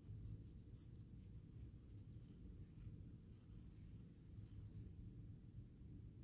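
Faint, scratchy rubbing of a cotton swab scrubbing gunk out of a small model-locomotive motor housing, in short strokes over a low steady hum.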